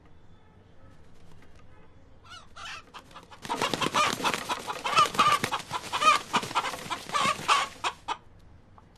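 Rooster clucking and squawking: a few faint calls, then about four seconds of loud, rapid, repeated calls starting a few seconds in.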